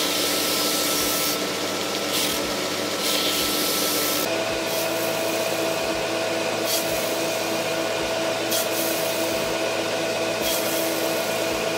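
GIB BDS-610 belt-and-disc sander running steadily while a lump of dried silicone is pressed against the moving abrasive belt to clean clogged grit. From about four seconds in the silicone goes against the sanding disc instead. Short hissing rubbing strokes come every second or two over the motor's steady hum.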